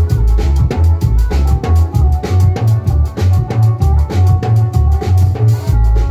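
Loud dance music: a drum-kit beat with a bass line stepping from note to note about twice a second under a melody.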